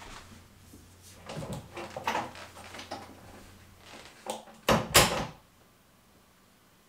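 Soft shuffling movement, then an interior door pulled shut about five seconds in: a latch click followed by a heavy thud.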